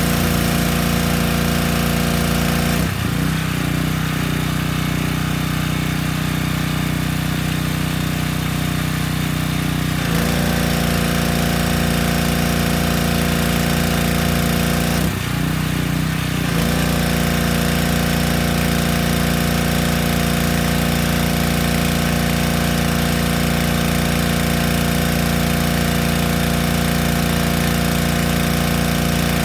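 Yamaha PowerStroke 3100 pressure washer's gasoline engine running steadily. Its note shifts about three seconds in, again around ten seconds, and briefly near fifteen seconds, as the pump takes up and drops load while the spray gun trigger is pulled and released.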